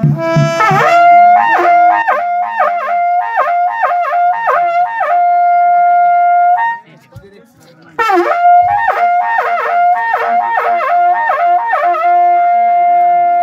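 A reed wind instrument playing a fast, ornamented melody in two phrases, each ending on a long held note, with a short pause about seven seconds in.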